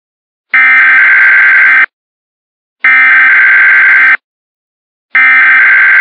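Emergency Alert System SAME header: three bursts of buzzing digital data tones, each a little over a second long, separated by about a second of silence. The third burst is still sounding at the end.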